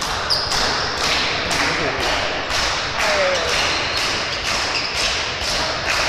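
Sports-hall ambience during a volleyball match: a steady rhythmic thumping about three times a second over general hall noise and voices, with a short high tone about a third of a second in.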